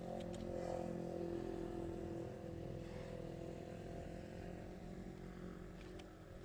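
A motor engine running steadily, loudest in the first couple of seconds and then slowly fading as it moves away.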